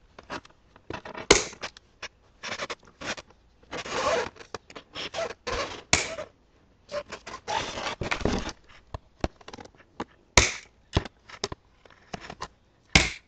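Scissors cutting the zip ties that hold an RC truck in its box, with plastic and cardboard packaging rustling and scraping. Three sharp snaps stand out among irregular rustles.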